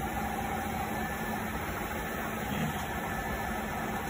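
Longitudinal seam welding machine running with a steady hum and hiss.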